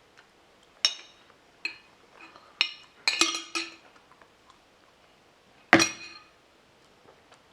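Sharp clinks of glass and cutlery being handled: about six short strikes with a brief ring, a cluster of them a little past three seconds in, and the loudest near six seconds in.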